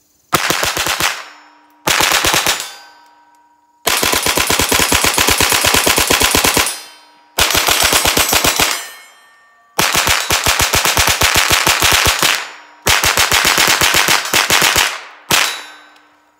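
Ruger 10/22 .22 LR rifle with a Franklin Armory BFS III binary trigger firing seven strings of rapid shots, one round on the pull and one on the release, fed from a drum magazine. The strings are broken by short pauses, and the last one is very short. The jams come from the drum, not the trigger.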